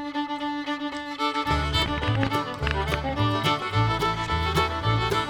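Instrumental outro music with held, pitched notes. A low bass line and beat join about a second and a half in.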